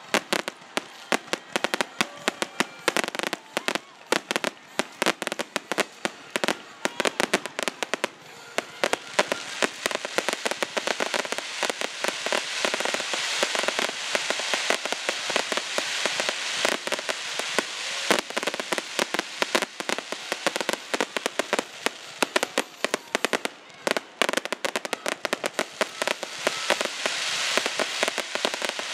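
Fireworks finale: rapid, overlapping bangs of aerial shells, with dense crackling that thickens in the second half.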